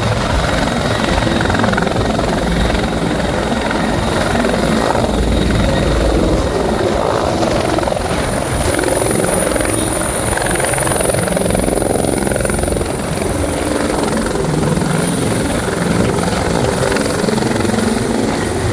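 Bell 412EP twin-turbine helicopter running loud and steady close by, its engine and rotor noise constant, with a thin high whine heard most strongly midway through.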